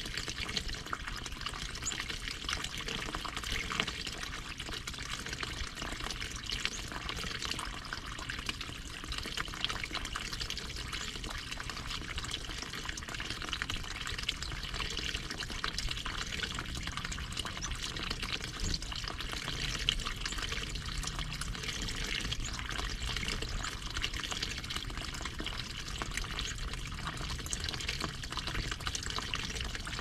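Water running steadily in a small garden stream fed from a pond: an even trickling and splashing.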